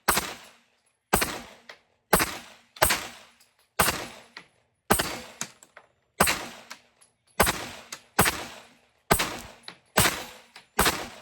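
Glock 19X MOS 9mm pistol firing about thirteen single shots at a steady pace, roughly one a second, each shot trailing off in a short echo.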